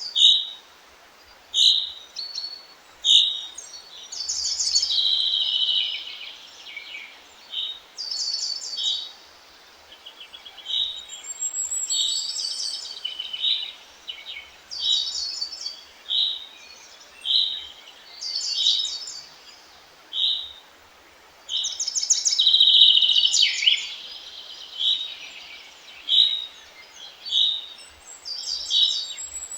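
Songbirds singing: one bird repeats a short high call about once a second, while other birds add trilled, twittering phrases.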